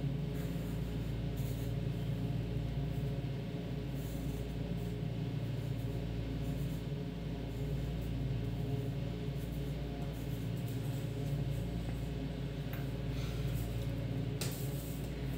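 Steady low machine hum made of several fixed tones, with a brief scratch near the end.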